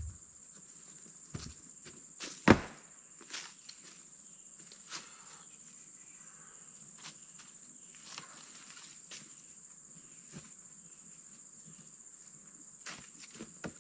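Steady high-pitched drone of insects such as crickets, with scattered footsteps and small clicks and knocks. One sharp knock about two and a half seconds in is the loudest sound.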